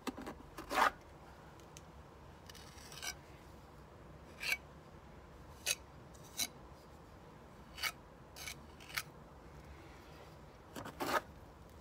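Bricklaying trowel scraping wet mortar in a plastic bucket and against brick, in short separate strokes about once a second, the loudest about a second in.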